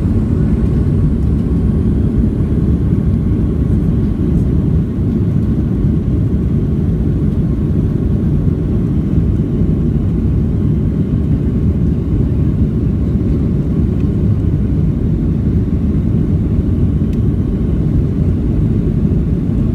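Boeing 737-700 heard from inside the passenger cabin: a steady, loud low rumble of engines and airflow, with a faint steady tone above it.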